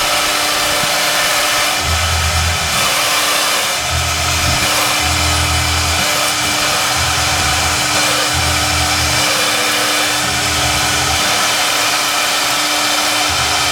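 CNC foam router running: the spindle gives a steady hum and rushing noise, with a low drone that cuts in and out about every second.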